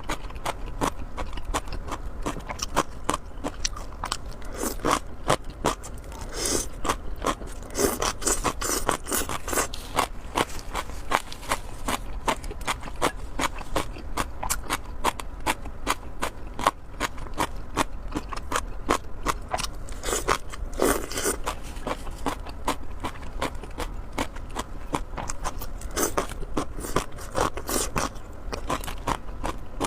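Close-miked eating sounds: chewing, biting and mouth smacks, a dense run of rapid clicks with a few louder bursts.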